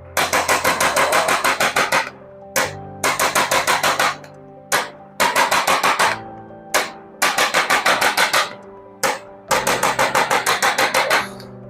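Rapid runs of sharp tapping strikes, about eight a second, each run lasting about two seconds with short gaps between, over soft background music.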